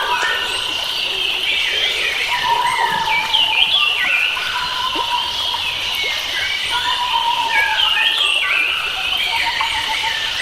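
Several wild forest birds singing at once, with many quick chirps and short up-and-down whistled phrases, over a steady high-pitched drone.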